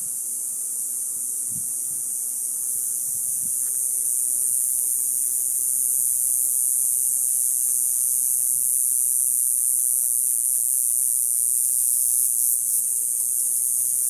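Cicadas buzzing in a steady, high-pitched chorus that grows a little louder about four seconds in.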